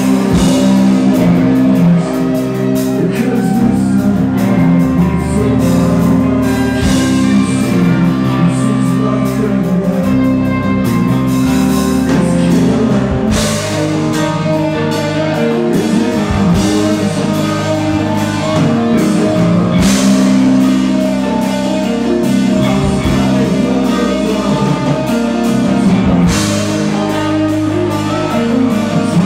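Live rock band playing with electric guitars and a drum kit.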